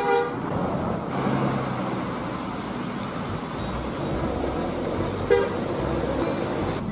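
Coach buses driving past on the road, engine and tyre noise, with a horn cutting off right at the start and a short horn toot about five seconds in.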